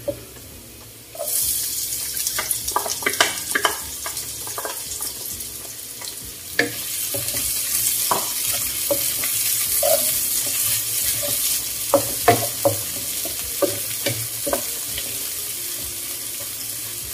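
Sliced onion added to garlic in hot oil in a non-stick wok: a sizzle starts suddenly about a second in and grows stronger partway through. A wooden spatula stirs and scrapes against the pan with irregular knocks.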